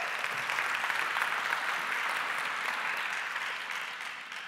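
Audience applauding: a dense, steady patter of many hands clapping that fades away near the end.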